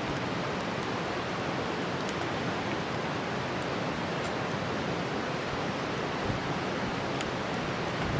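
Steady rush of running water, like a nearby stream. A few faint light clicks come through it as a wooden spatula scoops canned fish filling out of a tin.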